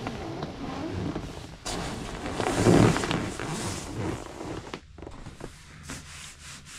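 Fabric rustling with soft bumps and thuds, loudest about two to three seconds in, then a few scattered knocks and rustles.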